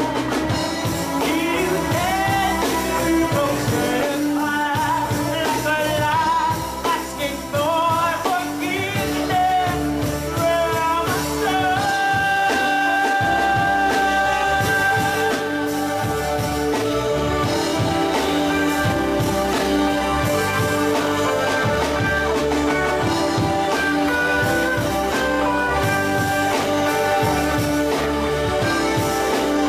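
Live reggae band playing, with electric guitar, keyboards, bass and drums under a woman's lead vocal and backing singers. The singer's line winds up and down in runs over the first ten seconds or so, then gives way to long held notes over the steady groove.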